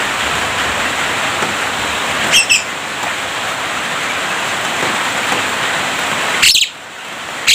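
Javan myna giving short, sharp double calls, once about two and a half seconds in and twice near the end, over a steady hiss that drops away briefly after the second call.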